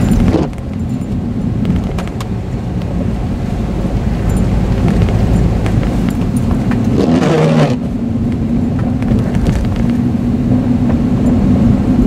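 A Honda car driving on a snowy road, heard from inside the cabin: steady engine and road noise with a low hum. There is a short louder burst about seven seconds in.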